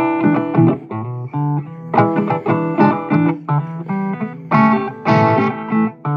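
Music: guitar playing a quick succession of plucked notes.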